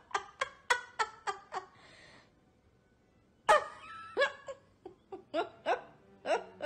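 Boston terrier barking in quick runs of short, high, yelping barks: about six in the first second and a half, a pause, then a loud bark about halfway through followed by several more.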